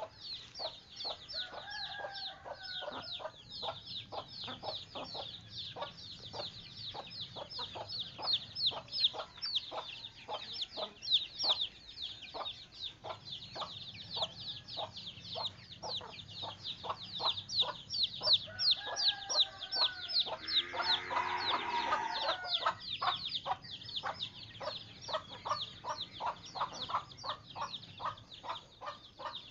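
Chickens clucking and calling, over a constant fast run of short high-pitched peeps, with a longer pitched call about twenty seconds in.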